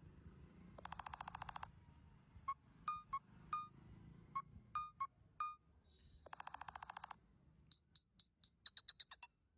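Faint electronic phone ringtone: a rapid buzzing rattle, then a run of short pitched beeps, another buzzing rattle, and quickening high clicks near the end.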